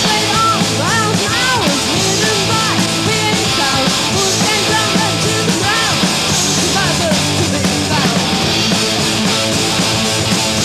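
Live hard rock band playing at full volume: distorted electric guitars, bass and drums, with a lead line of quickly bending high notes.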